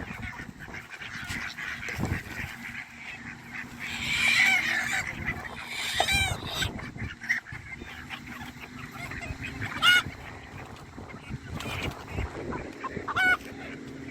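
Geese honking: several separate honks spread across the stretch, the loudest about ten seconds in, over the general noise of live poultry.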